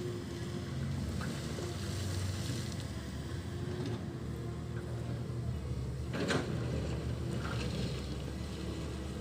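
Diesel engine of a Komatsu PC138 excavator running steadily at a low, even rumble, with one sharp click or knock about six seconds in.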